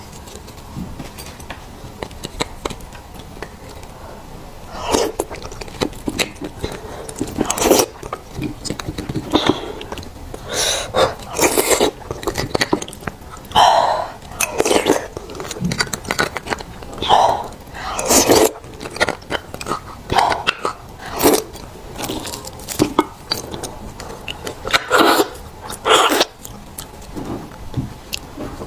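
Close-up eating sounds of beef bone marrow: wet sucking from the bone and chewing of the soft marrow, in irregular bursts every second or two.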